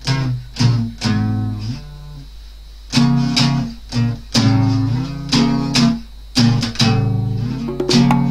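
Acoustic guitars strumming chords in short, sharply accented stabs, with a quieter gap of about a second and a half a couple of seconds in before the stabs resume.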